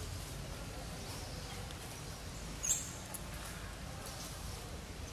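Outdoor background hiss with one short, sharp, high-pitched chirp about two and a half seconds in, one of a series that comes roughly every three seconds.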